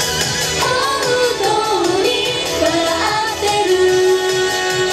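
Japanese idol pop song performed live: women's voices singing into microphones over a backing track with a steady beat. Near the end one voice holds a long note.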